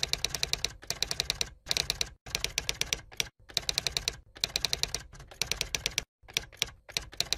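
Typing sound effect: rapid key clicks, about ten a second, in bursts of half a second to a second separated by short gaps.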